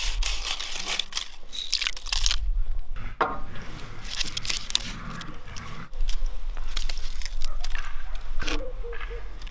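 Dry crackling and rustling of bay leaves and papery garlic bulbs being handled and dropped into a pot, in short irregular bouts.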